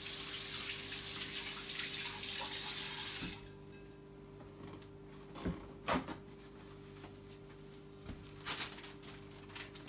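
Kitchen faucet running into a stainless-steel sink while hands are washed, shut off abruptly about a third of the way in. A few short knocks follow.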